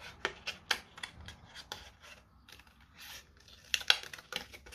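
Scissors snipping through thin painted card in a run of short cuts, several a second, with a pause around the middle and the loudest snips near the end.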